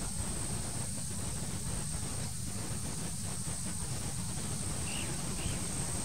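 Steady outdoor background noise: an even hiss with a constant high-pitched whine over a low rumble, and two faint short chirps about five seconds in.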